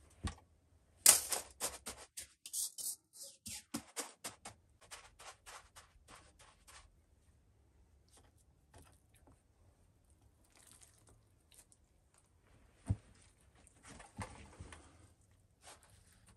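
Handfuls of a damp white grainy mixture dropped and spread in an empty metal baking pan: a dense run of sharp ticks and crackles for the first several seconds, then soft handling sounds, with a single knock about three-quarters of the way through and a short rustle after it.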